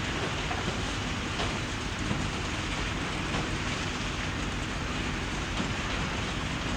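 Junkyard landfill ambience: a steady, dense rumble and hiss with faint scattered clicks and a low steady hum underneath.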